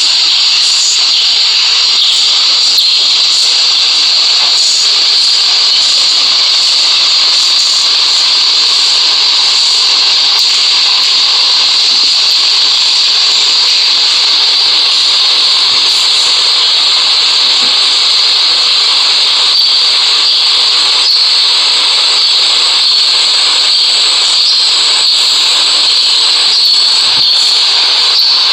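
GEMC 48-inch ceiling fan running, heard as a loud, steady hiss that stays even throughout.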